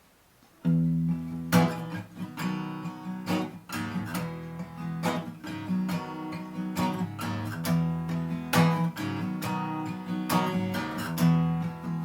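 Acoustic guitar strumming chords as the instrumental intro to a song, starting suddenly about a second in.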